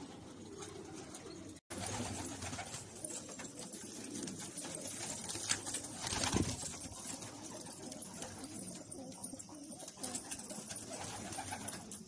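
Domestic pigeons cooing in a loft, the sound cutting out for a split second about two seconds in. A short thump near the middle is the loudest moment.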